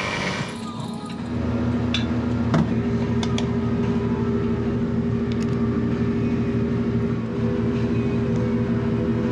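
Cordless refrigeration vacuum pump running with a steady motor hum, which sets in about a second in, while an evacuation of the system is under way. Now and then there is a sharp click as the brass hose fittings and valves on the pump are handled.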